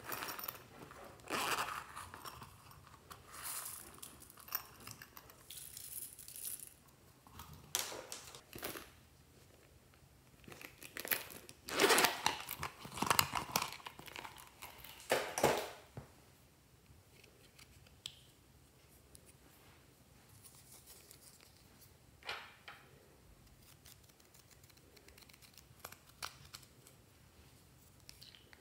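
Small plastic and paper packaging handled and opened by hand, crinkling and tearing in irregular bursts, with crumbled eraser shavings shaken out of a small container. The handling is loudest in the first half; the second half is quieter, with a few single clicks.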